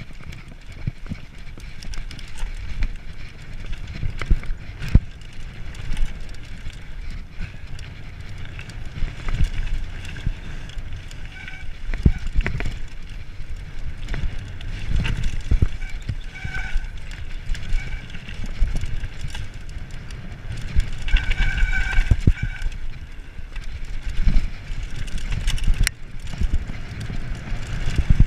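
Mountain bike descending a dry dirt and gravel trail, heard from a rider-mounted camera: a continuous low rumble of tyres over the ground, with frequent sharp knocks and rattles from the bike over bumps and rocks. A couple of brief high squeals come about halfway through and again about three-quarters through.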